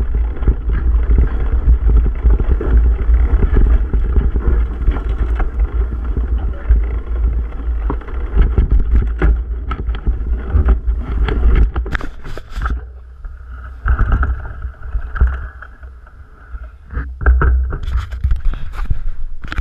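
Mountain bike ridden over rough, grassy ground, with heavy rumble and wind buffeting on the mic and the bike rattling and clicking over bumps. A burst of sharp knocks comes about two-thirds through, then the sound quietens, with clicks and scrapes near the end.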